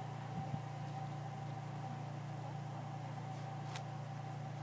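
A steady low mechanical hum with a thin constant tone above it and a couple of faint clicks.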